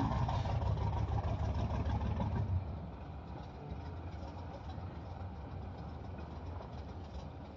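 Vehicle engine running, louder for the first two and a half seconds, then dropping to a quieter, steady low drone.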